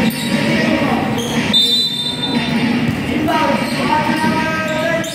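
Basketball game in a gym: the ball bouncing on the court and players' feet scuffing, with boys' voices calling out, mostly in the second half. A brief high squeal comes about one and a half seconds in.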